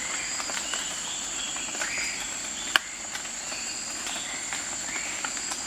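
Insects trilling steadily at a high pitch, with scattered short chirps over it and one sharp click nearly three seconds in.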